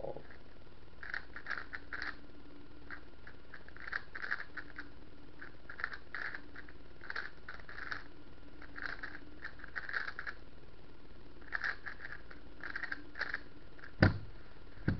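Gans 356S V2 Advanced speedcube being turned fast in the hands: its plastic layers clack in quick bursts of turns with short pauses between, and one louder sharp knock near the end.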